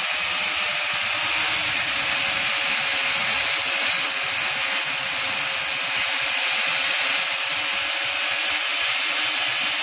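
Angle grinder cutting through steel bar grating: a steady motor whine under the loud hiss of the wheel on the steel, held without a break.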